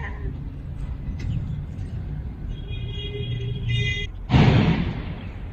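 Steady low background rumble. A flat, high-pitched tone lasts about a second past the middle, and about four seconds in a loud, sudden rushing noise fades away over half a second.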